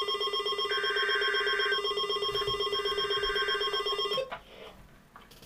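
Electronic emergency-alert alarm warbling loudly for about four seconds, then cutting off, with bursts of screeching digital data tones, the SAME header of an Emergency Alert System message, heard under it about a second in and again near the three-second mark.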